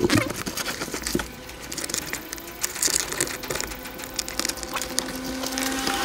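Hands fitting a small plastic parcel-tray hook into a car's boot side trim: scattered plastic clicks, knocks and rustling as the part is handled and pressed into place.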